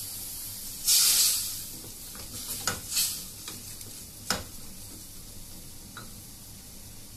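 Potatoes and a splash of water sizzling in hot coconut oil and spiced onions in a steel pot, stirred with a wooden spatula. A loud burst of sizzling comes about a second in, and the spatula knocks sharply against the pot a few times.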